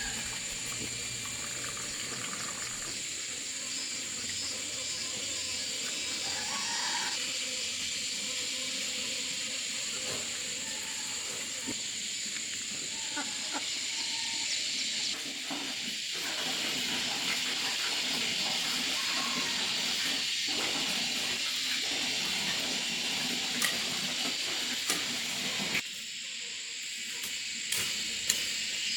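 A steady high hiss with a thin, steady whistle-like tone in it, and a few sharp clicks near the end.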